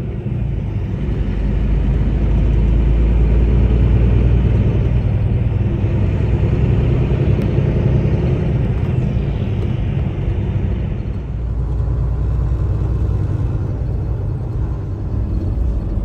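Kenworth T680 semi-truck heard from inside the cab while driving: a steady low engine and road rumble with a haze of tyre and wind noise. It grows louder about two seconds in and eases off again about eleven seconds in.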